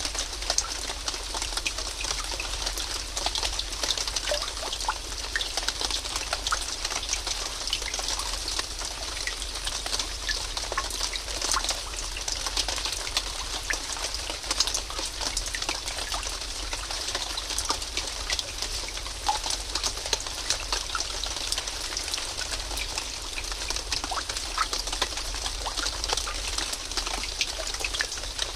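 Steady rain falling, a dense patter of drops with the odd sharper splash.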